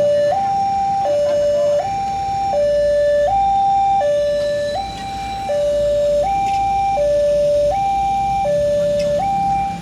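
Railway level-crossing warning alarm sounding a steady electronic two-tone signal that alternates between a low and a high pitch about every three-quarters of a second, continuously.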